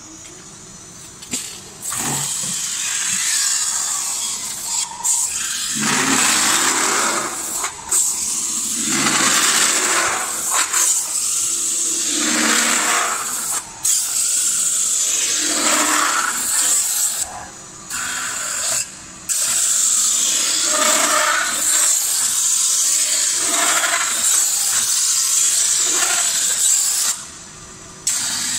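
X-1000 single-roller CNC spinning machine forming a 1.2 mm carbon steel blank into a pot: the roller scrapes along the spinning steel in repeated passes, each swelling and fading over a second or two, over a steady high whine. The noise drops away briefly a few times, longest near the end.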